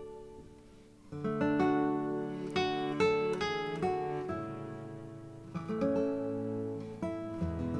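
Background music: acoustic guitar, plucked and strummed, with a fresh run of chords starting about a second in.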